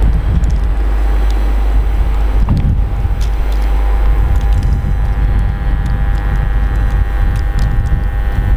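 Electric commuter train, a Stadler FLIRT multiple unit, moving past on the track with a low rumble. From about four seconds in, a steady electric whine of several pitches rises above the rumble.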